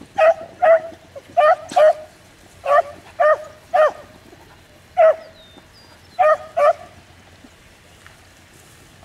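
A beagle baying on a rabbit's scent trail, giving about ten short, loud barks in pairs and a run of three, with a pause before a last pair near the end.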